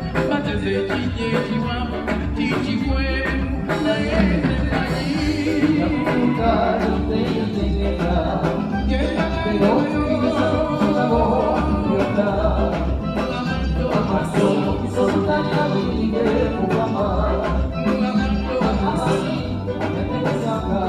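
A live band playing a song with a singer's voice over it, driven by a steady bass beat.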